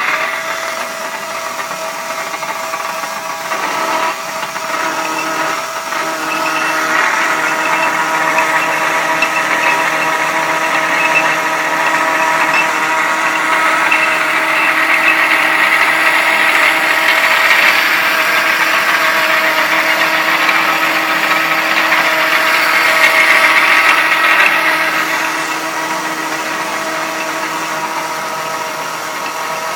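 Antique belt-driven Israel H. Johnson lathe running, its electric motor, leather belt and gears giving a steady whine of several tones, while it turns down a steel hub. The sound grows louder and harsher about a quarter of the way in and eases back near the end.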